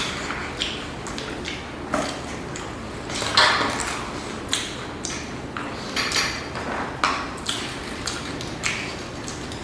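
Eating and food-handling noises: a string of short crunches, rustles and light clatters from biting and handling fried chicken and its packaging, the loudest about three and a half seconds in.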